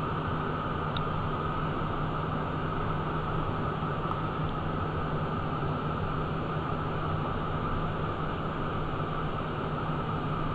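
Steady cockpit noise of a Cessna Citation 501 twin-jet in flight: an even rush of airflow over the airframe with a constant low hum and a higher whine from the turbofan engines.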